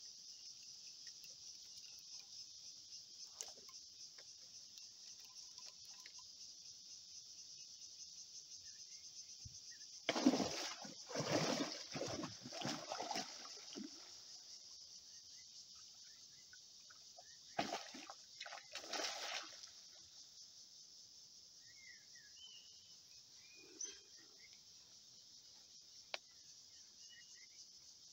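A hooked giant snakehead thrashing and splashing at the water's surface, in a loud burst of several splashes about ten seconds in and a shorter burst around eighteen seconds. A steady high-pitched insect chorus runs underneath throughout.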